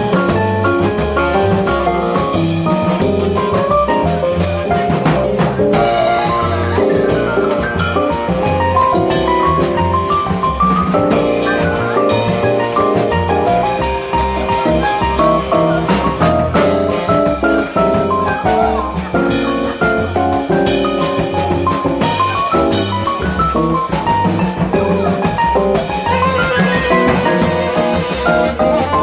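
Jazz quartet playing a swinging tune, the drum kit keeping time under quick runs of pitched notes.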